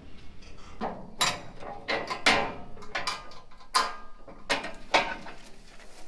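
Steel dump trailer clanking: a run of sharp metal bangs and scrapes, about eight over four seconds, starting about a second in, some ringing briefly.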